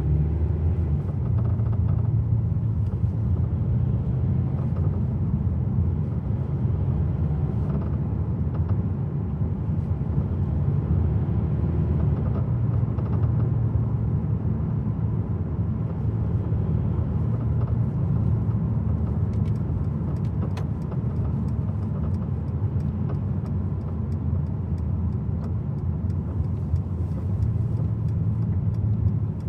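2019 Mercedes-Benz C220d on the move, a steady low rumble of road and running noise, with faint sporadic clicks, most around two-thirds of the way through and near the end. These are from a rattle around the passenger-side front wheel that comes only with the steering held straight.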